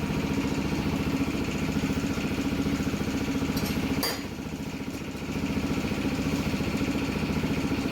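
Motorcycle engine idling steadily in a workshop, with a sharp click about four seconds in; the engine note drops briefly and then comes back up about a second later.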